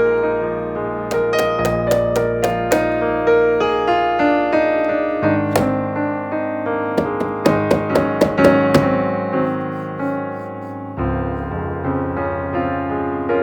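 Background piano music, a steady flow of melodic notes with chords.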